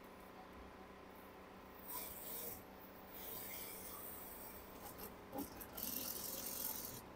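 Industrial single-needle sewing machine stitching fabric in short runs, a rasping hiss that comes in three bursts, the last and loudest near the end.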